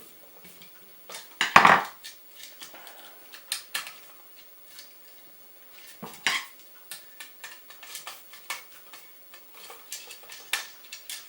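Small metallic clicks and clinks of a screwdriver and bare copper ground wire being worked onto an electrical receptacle's ground screw. There is a louder clatter about a second and a half in and another about six seconds in.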